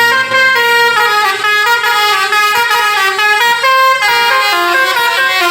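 A Basuri-type telolet musical horn on a tour bus playing a tune: a loud, unbroken run of short pitched notes that step up and down in quick succession.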